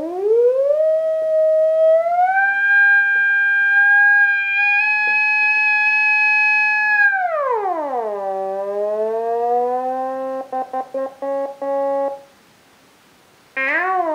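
Bebot iPad synthesizer app's robot voice: one continuous synth tone, pitch set by a finger sliding on the touchscreen. It glides up and holds a high note for several seconds, slides down to a low note, breaks into rapid stutters, stops, then returns near the end with a wavering pitch.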